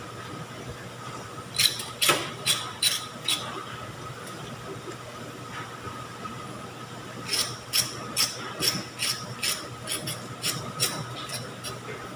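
Shredded sweet potato pancakes shallow-frying in hot oil in a wok: the oil sizzles and spits. There is a handful of sharp pops about two seconds in, then a longer run of pops, about three a second, through the second half.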